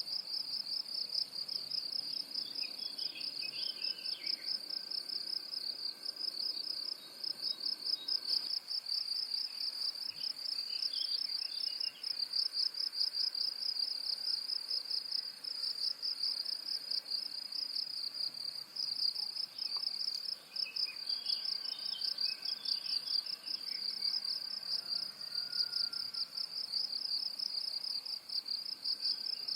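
A continuous, high insect trill pulsing rapidly without a break, with faint bird chirps in three short clusters: a few seconds in, around the middle, and about two-thirds of the way through.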